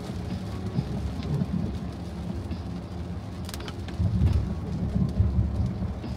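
Audi Q4 e-tron electric car driving on a wet road in rain: steady tyre hiss and low road rumble with rain on the car, growing louder about four seconds in.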